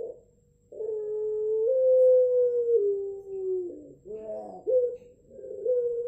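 Puter pelung, the long-cooing Indonesian variety of Barbary dove, cooing: one long held coo of about three seconds that steps up and then down in pitch, a brief lower warbling break, then the next long coo starting about five seconds in.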